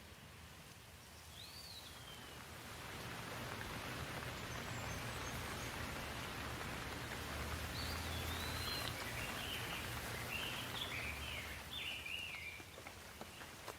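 Rain falling steadily, its hiss swelling over the first few seconds and easing near the end, while a bird gives one gliding call early on and then a run of short chirps.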